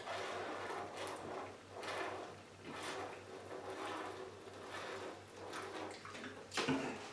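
People chugging Sprite from plastic bottles: gulps of fizzy soda, with a soft swell about once a second.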